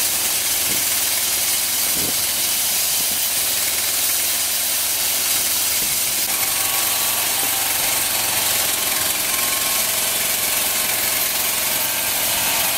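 Small petrol engine on a homemade bandsaw mill running steadily under load while the band blade cuts along a log, with a loud, steady hiss over the engine.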